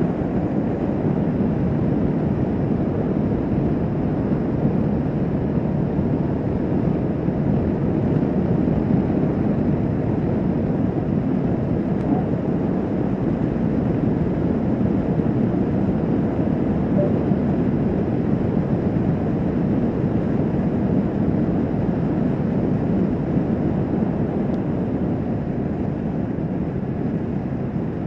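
Kawasaki Vulcan S 650 motorcycle cruising at a steady speed: a constant rush of wind and engine noise with no change in pace.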